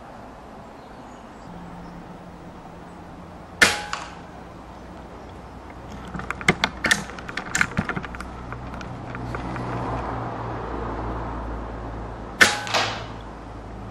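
Two shots from a .22 pre-charged pneumatic air rifle, one a few seconds in and one near the end, each a sharp crack followed a moment later by a softer second crack. A quick run of sharp clicks comes between them, over a steady low hum.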